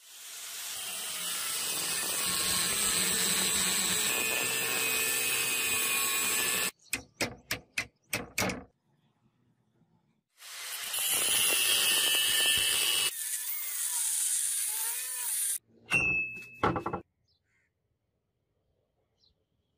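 Angle grinder with an abrasive cutting disc spinning up and cutting into a thick iron hook, in two runs of about six and five seconds. Between and after the runs come a few short clicks and clanks.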